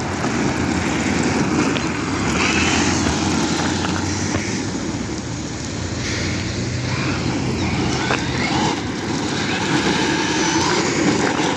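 Traxxas Maxx RC monster truck running at speed: a steady noise of its brushless electric motor and tyres on the ground, with a low hum under it.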